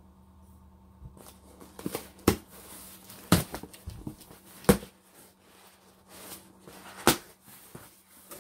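Cardboard shipping box being opened by hand: packing tape slit and stiff cardboard flaps pulled open and folded back, with several sharp cracks of the cardboard. Plastic air-pillow packing crinkles near the end.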